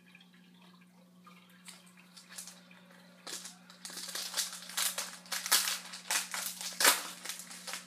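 Packaging of a hockey card pack crinkling and crushing as it is torn open and handled, in irregular crackly strokes that grow louder and denser about halfway through, over a steady electrical hum.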